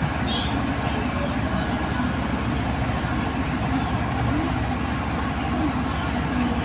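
Steady background noise: an even low rumble with hiss, unchanging throughout, with no distinct knocks or clicks.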